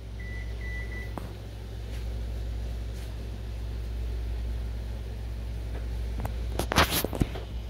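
A steady low hum, with two short electronic beeps in the first second. About two-thirds of the way in comes a brief cluster of rustling, knocking bursts, the loudest part, typical of a phone being handled against the tank.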